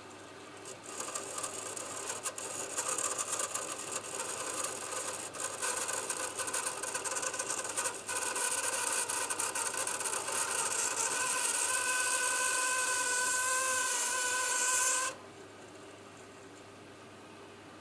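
The overflow (bypass) valve of a Viessmann Vitodens 200 WB2A gas condensing boiler squeaking: a rasping hiss starts about a second in, a steady squealing tone joins in the last few seconds, and everything cuts off suddenly. The owner puts the squeak down to the bypass valve.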